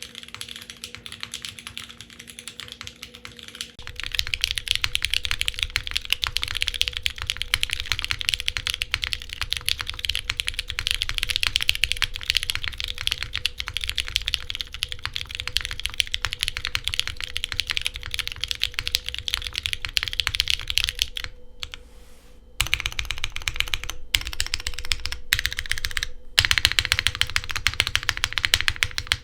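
Fast, continuous typing on a Geon Works F2-60 mechanical keyboard fitted with lubed and filmed, diamond-polished vintage Cherry MX Brown tactile switches, GMK keycaps and a full aluminium plate. About four seconds in, the sound turns louder and fuller, and about three-quarters of the way through the typing stops for a little over a second.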